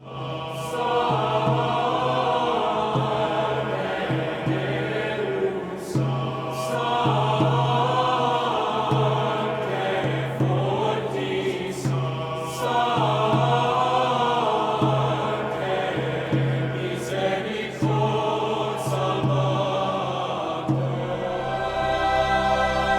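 University chorale singing sacred choral music, many voices over a steady low held note, in phrases of about six seconds. The voices settle onto a long sustained chord near the end.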